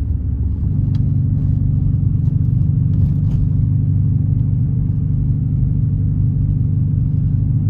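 Dodge Challenger R/T's 5.7-litre HEMI V8 running as the car drives on snow, a steady low rumble that grows louder about a second in.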